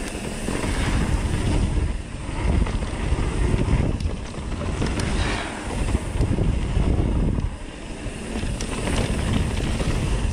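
Wind buffeting the microphone while a mountain bike rolls along a dirt trail, the rushing swelling and easing every couple of seconds, with a few light clicks and rattles.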